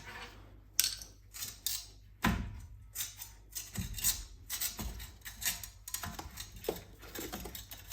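Irregular light metallic clicks and knocks, about a dozen spread over several seconds, as a car's front suspension strut assembly is worked slowly down out of the wheel arch.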